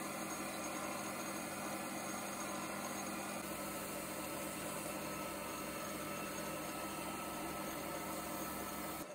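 Small metal lathe running at a steady speed with an even hum, spinning a fountain pen part while an abrasive stick is held against it for sanding. The sound cuts off at the very end.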